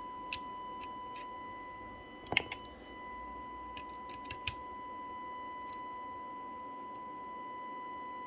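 Steady 1 kHz test tone from the Tram D12 CB radio's receiver, the demodulated audio of the test signal it is being aligned on, with faint hiss. Scattered short sharp clicks come over it, the loudest about two seconds in.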